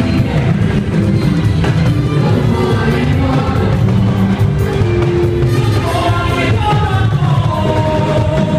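Church music: voices singing a melody together over loud, steady instrumental backing with a heavy bass.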